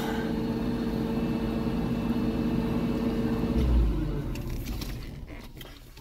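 Steady machine hum with several held tones that shuts off about three and a half seconds in with a low thump, then fades away.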